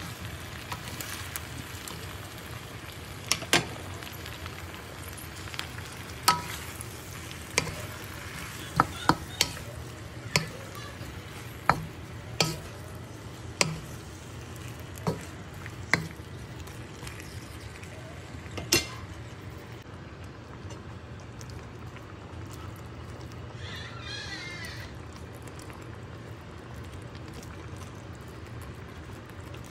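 Vegetables sizzling steadily in a wok as they are stir-fried with a wooden spatula. Sharp knocks of the spatula against the wok come every second or so through the first two-thirds, then stop.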